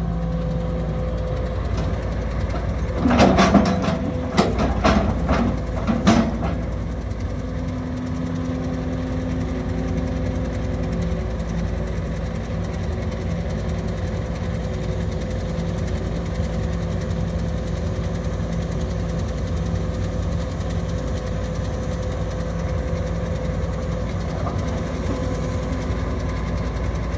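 Case CX210B hydraulic excavator's diesel engine running steadily. A run of loud knocks and clanks about three to six seconds in as the boom and bucket are worked, then a steady hum from the hydraulics for a few seconds before it settles back to the engine alone.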